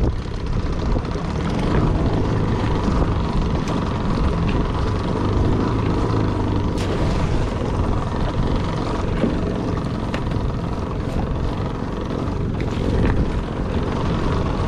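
Outboard motor of a small boat running steadily with an even, low drone.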